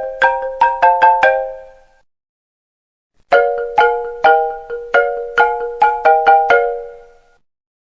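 iPhone ringtone: a marimba tune of quick struck notes. One phrase ends and rings out about two seconds in, and after a pause of about a second a longer phrase plays and fades out near the end.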